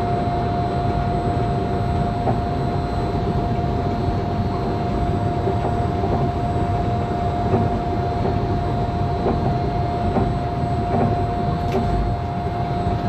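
Disneyland Monorail train running along its beam, heard from the front cab: a steady rumble with a constant high-pitched whine, and a few faint ticks.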